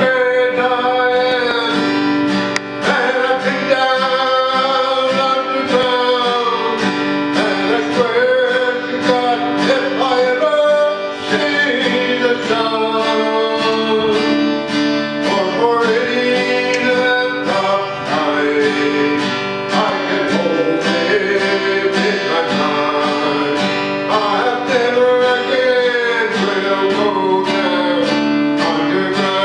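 A man singing while strumming a steel-string acoustic guitar in a steady rhythm.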